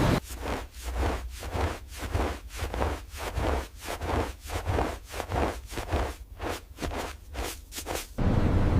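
Rhythmic scraping or swishing, about two to three strokes a second over a low rumble, that stops shortly before the end, where a steady, louder noise takes over.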